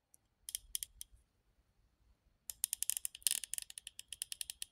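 Icon 3/8-inch flex-head ratchet with a fine 90-tooth mechanism, clicking as it is worked by hand: a few scattered clicks in the first second, then from about halfway a quick run of evenly spaced clicks, about nine a second.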